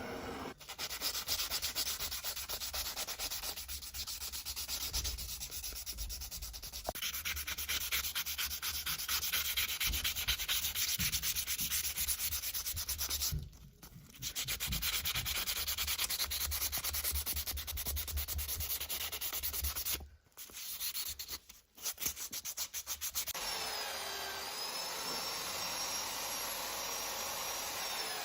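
Sanding on metal: a dense, fast rasping rub that stops briefly twice. Near the end it gives way to a steadier sound carrying a thin high whine.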